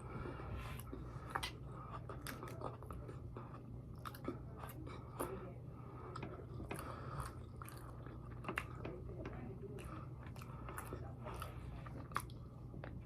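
A person chewing food close to the microphone, with irregular wet mouth clicks and smacks. A steady low hum runs underneath.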